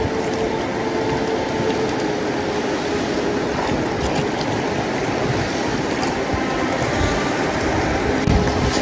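Steady rush and splash of river current around a drifting inflatable pontoon boat, with a couple of dull low thumps near the end.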